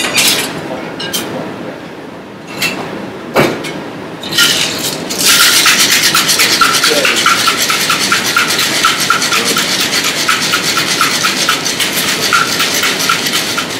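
Metal cocktail shaker shaken hard with ice for an espresso martini: a loud, fast, even rattle that starts about four seconds in and keeps going. Before it come a few separate knocks and clinks.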